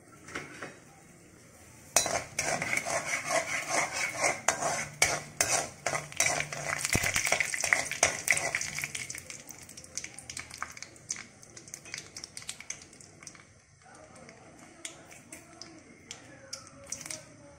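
A metal spatula stirs and scrapes around a metal kadai of hot oil with mustard and fenugreek seeds, loud with clinks from about two seconds in until about nine seconds. After that the oil sizzles more quietly, with scattered pops of spluttering mustard seeds.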